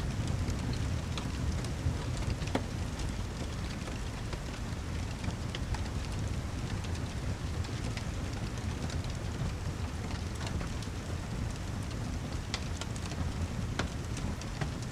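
Steady heavy rain with a low rumble underneath, and scattered sharp pops and ticks every second or so.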